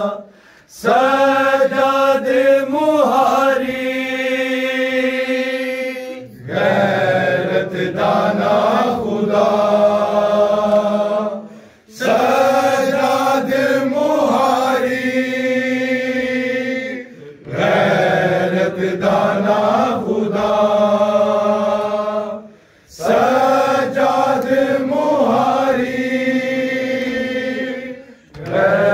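Men's voices chanting a Muharram nauha (Shia lament) together, in long sung phrases of about five seconds each with short breaks for breath between them.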